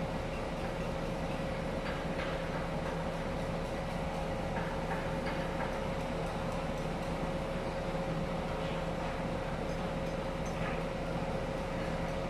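Steady machinery drone with a constant hum, and a few faint clicks and knocks scattered through it.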